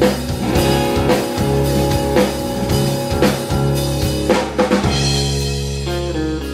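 Live band playing an instrumental passage on drum kit, electric guitar and keyboard, with regular snare and bass drum strikes about twice a second. Near the end the drums thin out and a short run of falling notes plays.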